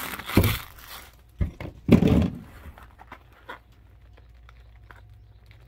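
Foil card-pack wrappers rustling, with a few knocks and a thump as they are handled and set down; the loudest thump comes about two seconds in, then only a few light crinkles.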